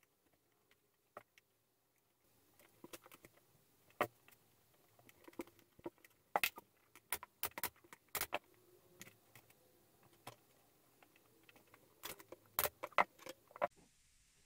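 Upholstery fabric being handled by hand: irregular rustles and small sharp clicks as the fabric is pressed and folded into pleats around the tufting buttons, with denser clusters of clicks in the middle and near the end.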